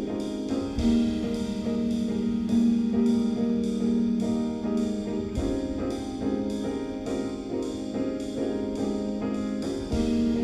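Background music: a piano piece with notes struck in a steady, even rhythm.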